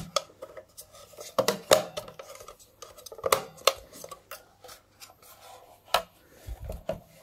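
Hands handling a wifi router's case on a table: scattered sharp clicks and knocks with rubbing in between, and a dull low bump near the end.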